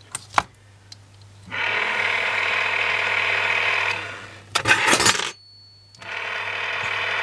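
Channel Master 9521 antenna rotor's 24 V AC motor turning the rotor through its gears, a steady run of about two and a half seconds. It stops with a few switch clicks, then starts again a second later.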